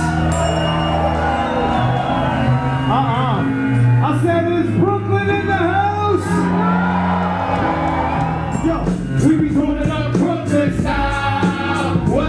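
Music with a sung vocal over a steady bass line; a drum beat comes in about eight and a half seconds in.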